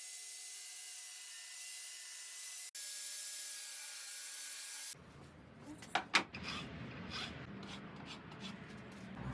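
Steady hiss of plywood being worked with a tool for about five seconds, dropping out briefly part way through, then sharp clicks and knocks of handling over a low hum.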